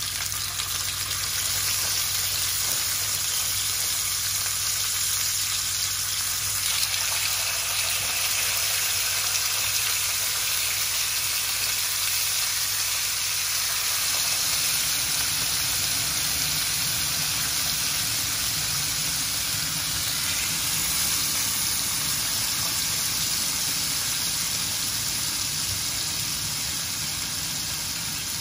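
Marinated chicken drumsticks sizzling in hot olive oil in a ridged grill pan: a steady frying hiss.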